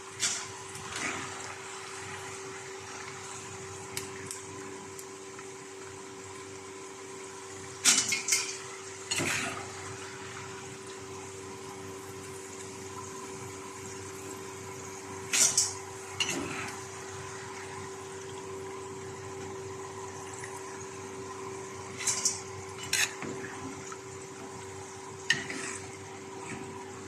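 Potato chips frying in hot oil with a steady sizzle over a steady hum, and a metal utensil clattering and scraping against the pan about eight times as the chips are lifted out.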